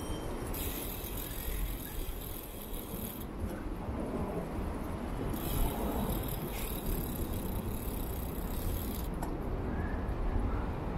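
A bicycle being ridden: a steady rumble of the ride, with some rattling.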